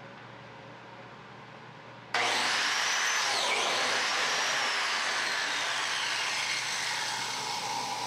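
Biscuit joiner starting abruptly about two seconds in and running as it cuts biscuit slots into the edge of a maple tabletop. Its whine has whistling tones that slide up and down.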